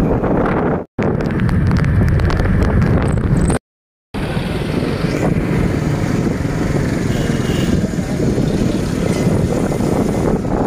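Street traffic noise with motorcycles, mixed with the rumble of wind on a phone microphone. It cuts off twice, briefly about a second in and for half a second near four seconds.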